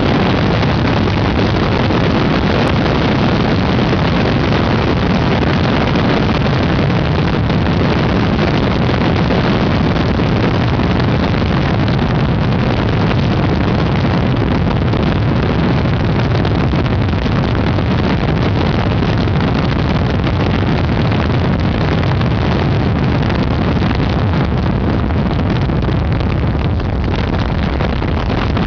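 Helicopter in flight heard on board: steady, loud engine and rotor noise.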